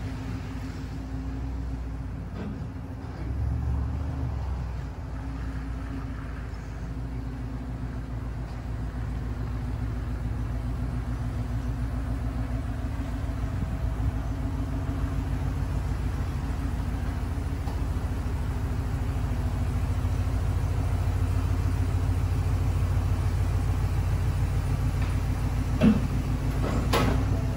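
Ford F-250 Super Duty pickup's engine running at low speed as the truck reverses slowly up close, a steady low hum that grows louder as it nears. A sharp click sounds near the end.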